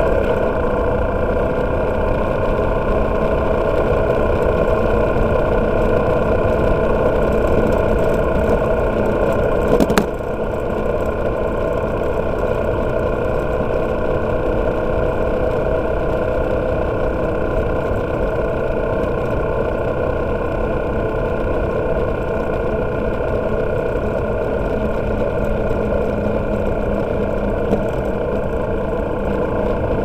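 Freshly overhauled motorcycle engine running steadily at cruising speed, heard from on the bike, first inside a road tunnel. About ten seconds in there is a sharp click, and the sound drops slightly in level as the bike comes out into the open.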